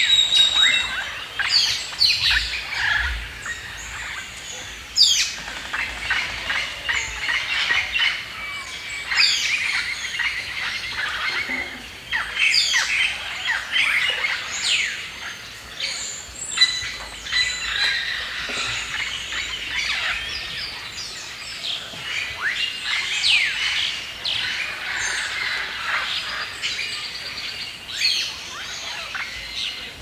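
A chorus of birds chirping and calling over one another, with rapid high chirps, many of them sweeping downward, and a few short held whistles.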